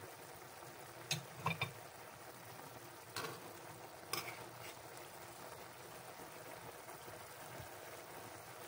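Chicken, tofu and broccoli simmering in oyster sauce in a wok with a faint, steady sizzle. A spoon clicks and scrapes against the wok a few times in the first half.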